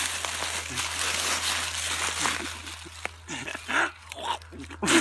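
A person imitating an animal: a string of short grunting calls that bend up and down in pitch, from about two seconds in, after a rustling hiss.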